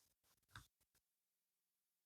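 Near silence: room tone, with a few very faint clicks in the first second.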